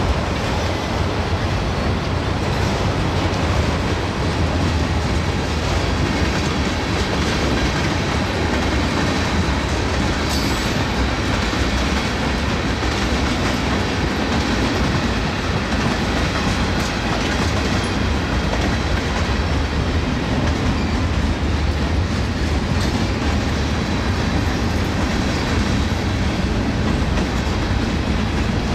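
Freight cars of a mixed manifest train (autoracks, tank cars, boxcars, covered hoppers) rolling past: a steady rumble of steel wheels on rail, with a few faint clicks.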